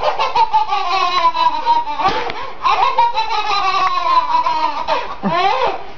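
Babies laughing in long, high-pitched peals, each sliding slowly down in pitch, with quick pulsing bursts of laughter at the start and again near the end.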